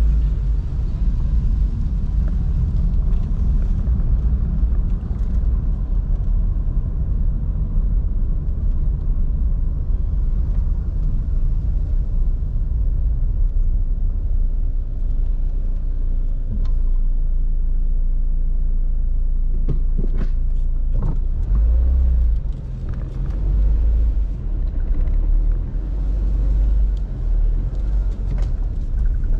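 Car driving: a steady low rumble of engine and road noise, with a few short knocks or clicks about two-thirds of the way through.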